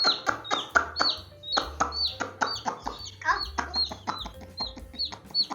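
Baby chicken chicks peeping: short, high chirps that drop in pitch, about two a second, over background music.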